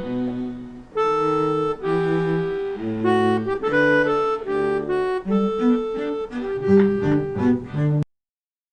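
Background music: an accordion-like melody over chords and a bass line, which stops abruptly about eight seconds in.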